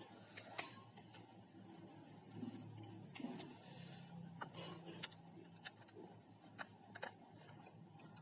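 Irregular small clicks and cracks as a cracked phone touch-screen glass is pried off its frame, about a dozen scattered snaps.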